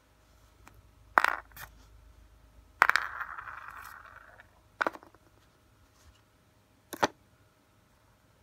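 A handful of sharp metallic clicks and clinks from small metal pins being made for a knife handle. The clink about three seconds in rings on and fades over a second or so.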